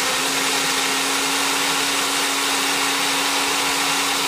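Single-serve personal blender running steadily at full speed, pureeing peeled orange segments into a smooth juice. A constant motor whine sits under the whirring of the blades.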